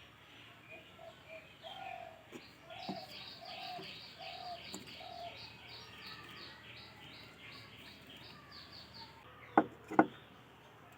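A bird chirping rapidly in the background, about three short high chirps a second, over a slower row of lower call notes. Two sharp knocks near the end are the loudest sounds.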